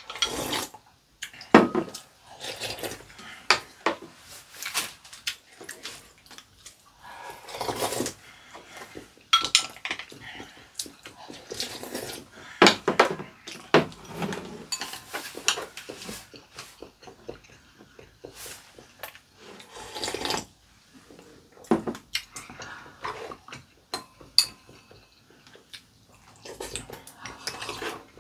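Chopsticks and spoons clicking and scraping against ceramic bowls and plates during a meal, in irregular clinks, some sharper than others, with the small mouth sounds of eating between them.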